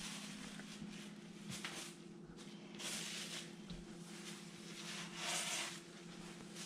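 Rubber grout float scraping and spreading grout across subway tile joints in about four short swishing strokes, the loudest near the end, over a faint steady hum.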